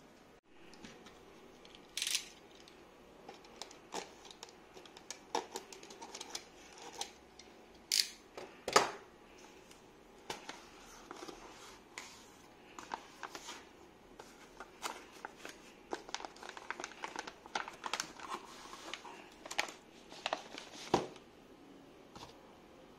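Cardboard box and plastic wrapping being handled: flaps opened and a plastic bag crinkling, with many scattered clicks and knocks, the loudest a little under nine seconds in.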